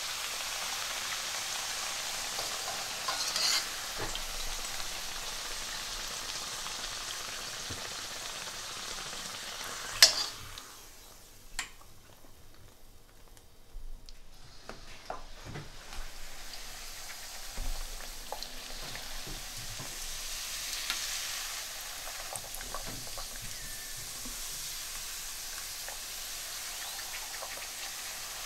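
Semolina puri dough discs deep-frying in hot oil in a wok, a steady sizzle. About a third of the way through there is a single sharp knock, the loudest sound; the sizzle then drops away for a few seconds with scattered small clicks before it returns.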